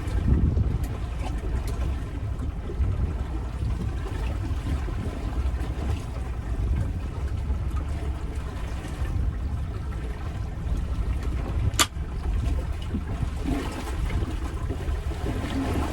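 Water sloshing and trickling around a small fishing boat over a steady low rumble, with one sharp click about twelve seconds in.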